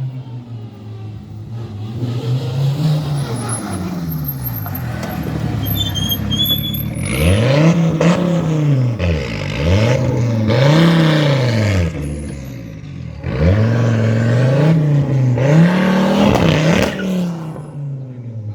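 A rally car's engine approaching on a stage, then revving hard up and down about five times through the middle as the driver works the throttle and gears, before fading away near the end.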